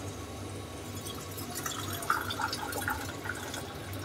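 Keema gravy simmering in an open pressure cooker over a gas flame: soft irregular bubbling pops from about a second and a half in, over a low steady hum.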